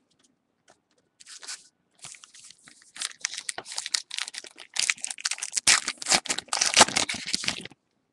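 A trading card pack's wrapper being torn open and crinkled: a dense run of crackling and tearing that starts about a second in, grows louder, and stops shortly before the end.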